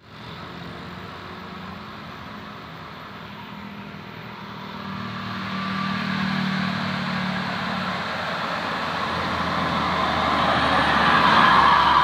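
A tour bus driving past on the road: its engine hum grows from about four seconds in, and the engine and tyre noise keep building to their loudest just before the end as the bus goes by close.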